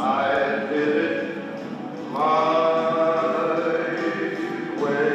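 Choir singing a slow tune in long held notes, with a new phrase starting about two seconds in and another near the end.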